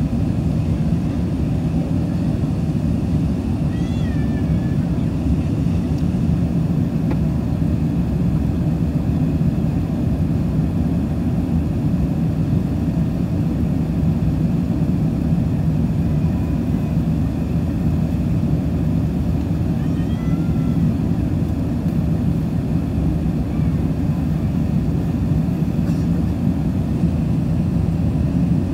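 Steady in-flight cabin noise of an Airbus A380, a constant low rumble of engines and airflow heard from a window seat over the wing. Two faint, brief high-pitched cries break through, about four seconds in and again near twenty seconds.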